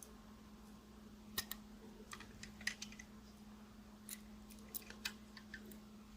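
Faint, irregular clicks and taps of small plastic and metal parts of a 1:50 scale die-cast truck and low-loader trailer model being handled, over a low steady hum.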